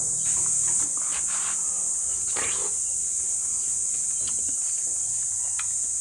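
Steady high-pitched chorus of insects, with a few faint short clicks and rustles over it.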